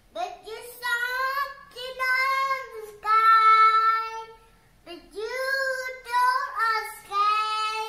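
A young child singing an improvised melody in several phrases of held, gliding notes, with the loudest and longest note about three seconds in and a short pause just before the halfway point.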